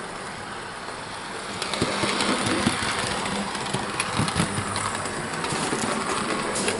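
Hornby OO gauge Maunsell S15 model steam locomotive running on the layout: a steady motor hum with its wheels clicking over rail joints and points, louder from about two seconds in. It runs smoothly, with no grinding from the motor.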